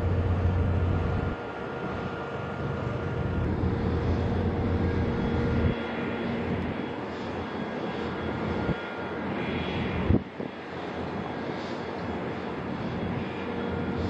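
Steady engine drone with faint whining tones from a destroyer and its harbour tugs under way. The level shifts a few times, with a brief knock about ten seconds in.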